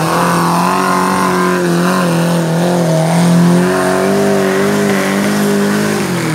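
Off-road jeep's engine revving hard under load as it climbs a steep bank out of a stream, held at high revs with small rises and dips and easing off right at the end.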